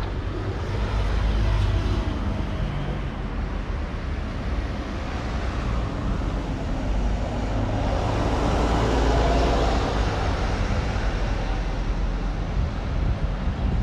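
A vehicle's low, steady rumble and motor hum, swelling about eight seconds in and easing off again.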